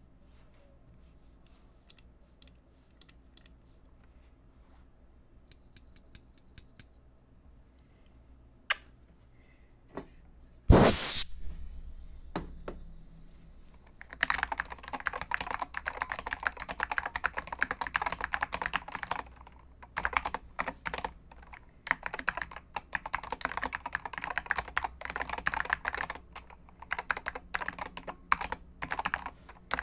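Computer keyboard keys pressed one at a time with gaps for about ten seconds, then a single loud thump, then fast, continuous typing from about 14 seconds on.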